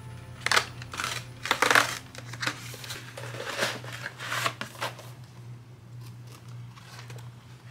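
Cardboard advent calendar being handled: a paper door flap pulled open and a small cardboard product box drawn out, a run of scraping, tapping and rustling for about five seconds, then quieter.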